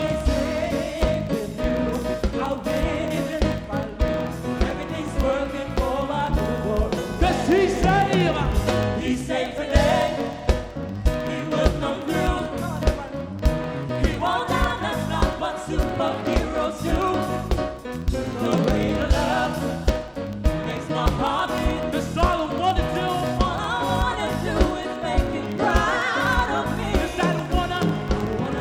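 Live gospel band playing with voices singing wavering, sliding vocal lines over a steady drum beat.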